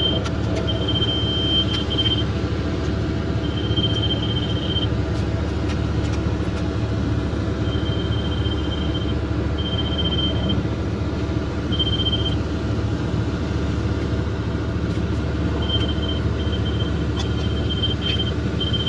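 Diesel engine of a piece of heavy earthmoving equipment running steadily, with a thin high tone coming and going every second or two.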